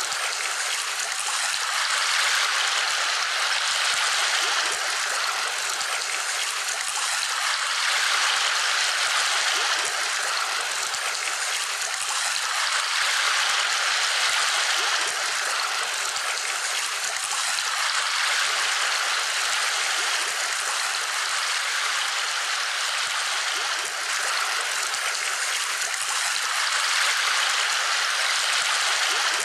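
A steady rushing noise like flowing water, gently swelling and easing every two to three seconds.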